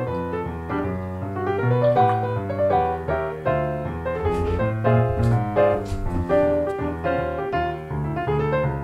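Background piano music, a melody of single notes over chords.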